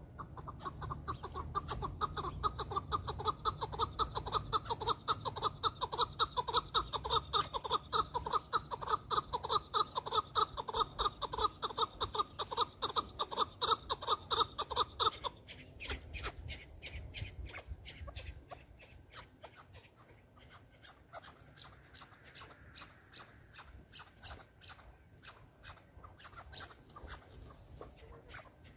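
Chukar partridge calling: a fast, even run of loud clucking calls, several a second, that stops about halfway through, followed by softer, sparser clucks.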